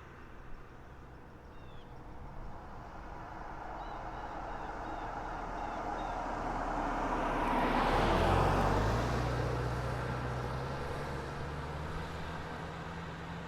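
A car driving past: tyre and engine noise swells to its loudest about eight seconds in, then fades as it moves away, the engine note dropping in pitch as it passes.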